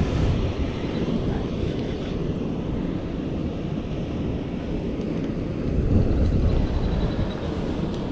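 Wind buffeting the microphone on an open boat on a lake: a steady low rumble that swells in a gust about six seconds in.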